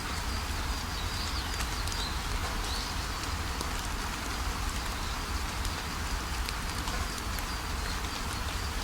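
Steady rush of a waterfall, with small birds giving short, high chirps over it, several about one to three seconds in and a few more near the end.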